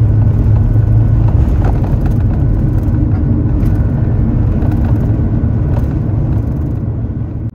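Airbus A330-200 takeoff roll heard from inside the cabin over the wing: a loud, steady low rumble of the jet engines at takeoff thrust with tyre rumble, and a few sharp knocks and rattles from the runway. The sound cuts off near the end.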